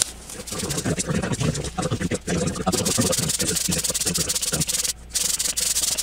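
Metal CPU heatsink base being lapped on 180-grit wet/dry sandpaper: quick back-and-forth rubbing strokes, with a brief pause about five seconds in. It is grinding down a rounded, uneven base that makes poor contact with the CPU.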